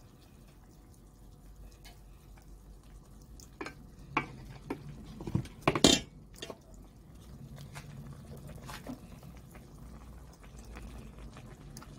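Slices of cooked beef being laid by hand into a stainless steel pan of broth: soft splashes of liquid and a few light knocks against the pan, the loudest about six seconds in, over a low steady hum.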